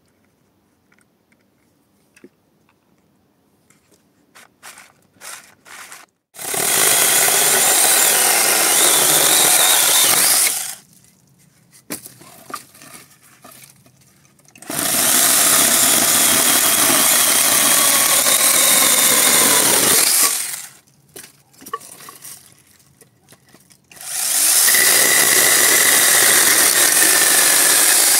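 Battery-powered brushless mini chainsaw cutting through tree branches in three bursts of about four to five seconds each, with light knocks and clicks of handling between the cuts.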